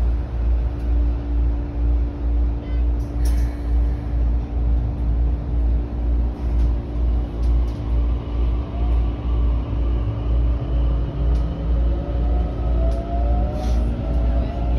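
Electric commuter train heard from just behind the driver's cab: a low throb pulsing about three times a second under a steady hum. From about halfway a motor whine rises in pitch as the train pulls away and picks up speed.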